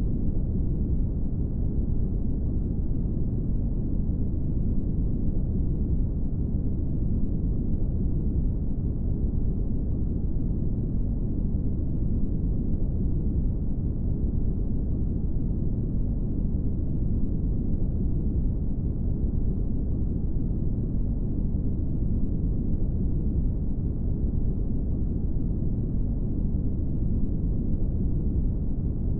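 Brown noise: a steady, deep rushing hiss weighted toward the low end, unchanging throughout.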